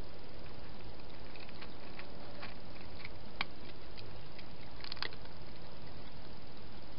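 Domestic cat feeding at a dish: faint, irregular wet clicks of its mouth, over a steady hiss.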